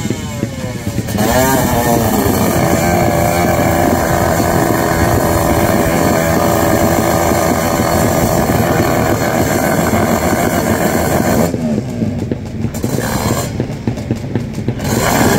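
Drag-racing motorcycle engine running loud and revving. Its pitch sweeps up about a second and a half in, then holds at high revs, and it eases off twice near the end.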